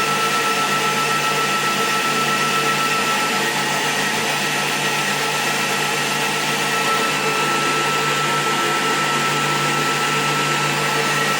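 A machine running steadily, an even whirring rush with a constant high whine and a low hum, typical of a motor or cooling fan and pump running under test.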